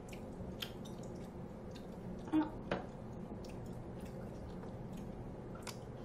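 Close-miked eating sounds: soft chewing and small wet mouth clicks, with a couple of slightly louder clicks about two and a half seconds in.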